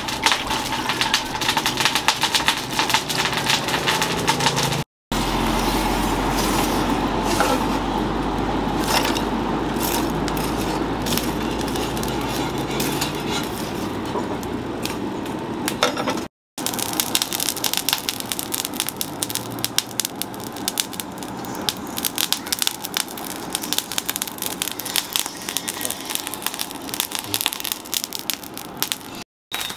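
Charcoal forge fire crackling with many sharp pops as sparks fly from the coals. A steady low hum joins in for about ten seconds in the middle.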